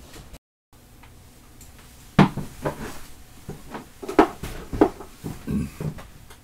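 Objects being handled and set down on a workbench: a string of clunks and knocks, about seven over four seconds, after a brief dropout to silence just under a second in.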